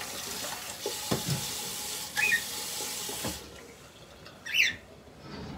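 Kitchen tap running into the sink, with a few knocks, shut off suddenly a little over three seconds in. A cockatiel gives a short chirp midway and a louder one near the end.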